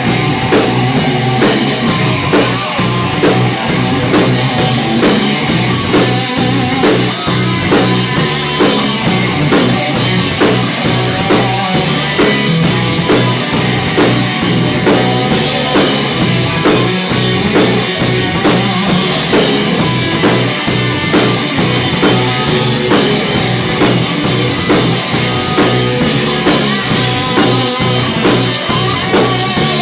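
Live rock band playing an instrumental passage with no vocals: drum kit keeping a steady beat under guitar and bass.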